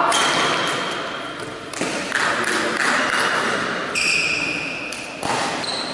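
Badminton rally: a racket smashes the shuttlecock at the start, followed by further sharp racket hits and short high squeaks of court shoes on the sports-hall floor.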